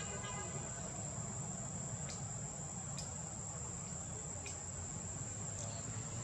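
Insects in the forest keeping up one steady, high-pitched drone, over a low steady rumble, with a few faint ticks.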